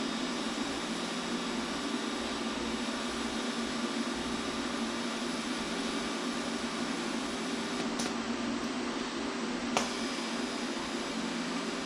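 Steady fan-like whirring hum of running machinery, with two light clicks, about eight and ten seconds in.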